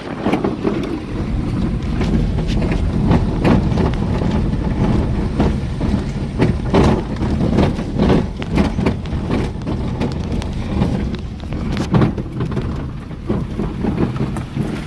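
A vehicle driving over a rough, unpaved dirt road: a steady low rumble with frequent knocks and rattles as it jolts over the bumps.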